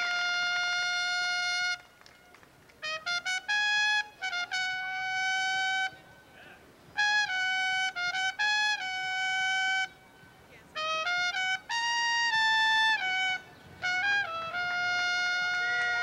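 A solo trumpet playing a slow melody. It goes in phrases of a few short notes that end on long held notes, with brief pauses between the phrases.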